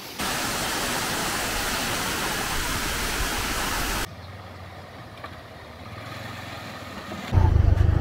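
A steady, loud rushing noise that cuts off abruptly after about four seconds, followed by a quieter stretch. Near the end a truck engine's low rumble comes in suddenly and is the loudest sound.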